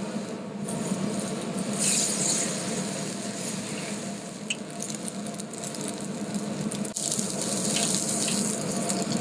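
Tomato halves sizzling in oil in a skillet over a gas flame. The sizzle swells about two seconds in and again near the end, and metal tongs click against the pan now and then as the halves are turned.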